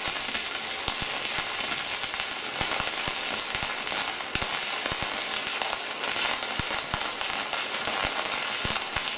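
Manual stick-welding arc: a coated electrode burning against steel plate in a steady crackling hiss with frequent sharp pops, as a vertical weld bead is laid.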